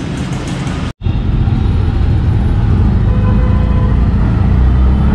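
Auto-rickshaw's small engine running with a steady low drone, heard from inside the open passenger cabin amid city traffic. The sound cuts out for an instant about a second in, then the drone carries on and swells near the end.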